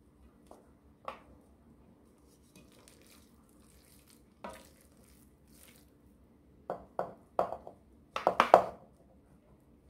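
Cooked macaroni being tipped from a metal pot into a speckled granite-coated pan and pushed out with a wooden spatula. There is soft scraping and a few light knocks, then a quick run of louder knocks of pot and spatula against the pan near the end.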